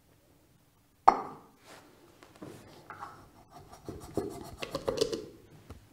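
A bonded PTFE pump diaphragm being pushed onto the thrust tube of a stainless steel pump: a sharp knock about a second in, then light clicks and rubbing of the diaphragm against the metal housing.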